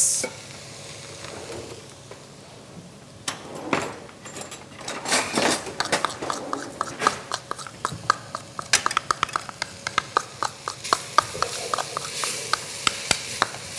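Spoons and utensils clinking and scraping against stainless steel pots: a few scattered knocks, then a rapid run of clicks in the second half, over a faint steady hiss.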